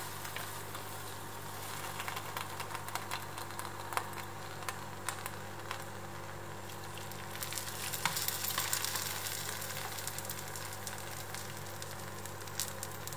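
Hot sugar syrup ladled onto künefe hot from the oven in foil trays, sizzling with a fine crackle and scattered small ticks as it soaks into the shredded pastry, over a steady low hum.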